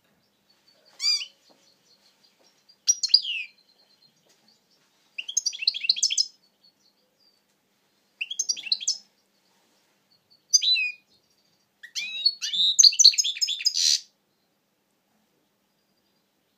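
European goldfinch singing: six short phrases of quick high notes separated by pauses, the last one the longest.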